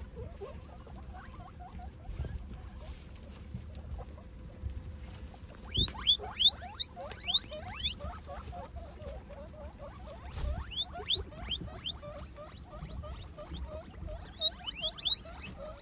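Guinea pigs foraging in bamboo leaves and hay: rustling and chewing, with quick runs of short, high squeaks about six seconds in, around eleven seconds and near the end.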